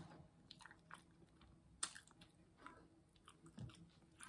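Quiet, close-miked chewing of a mouthful of BBQ Polish sausage sandwich, with scattered wet mouth clicks and smacks and one sharper click a little under two seconds in.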